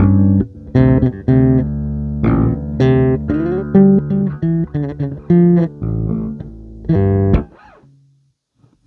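Plucked guitar notes played in a loose, wandering phrase, with a few sliding notes about three seconds in. The playing stops about seven and a half seconds in, leaving a faint hum.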